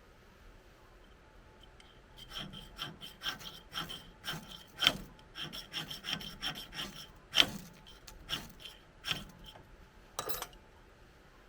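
Ferrocerium fire-starter rod struck again and again with a scraper: sharp rasping scrapes, two to three a second, starting about two seconds in, with a couple of louder strikes in the middle.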